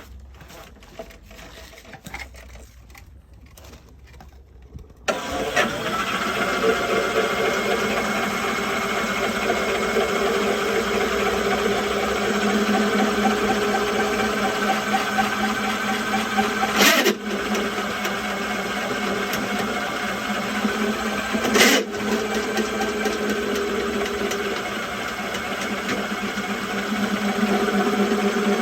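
A drain-cleaning machine's motor starts abruptly about five seconds in and then runs steadily with a constant hum, as the cable works a grease-clogged sewer line. There are two sharp knocks in the middle stretch.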